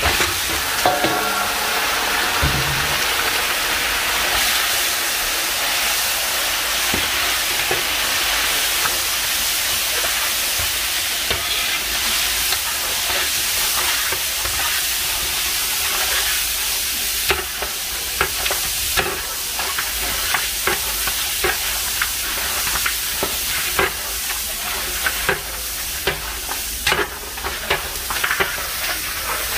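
Large chunks of fat-tailed sheep (dumba) mutton dropped into hot ghee in a big wok and sizzling hard. The sizzle starts suddenly as the meat goes in and stays steady. A long metal ladle stirs the meat, with frequent scrapes and knocks against the pan in the second half.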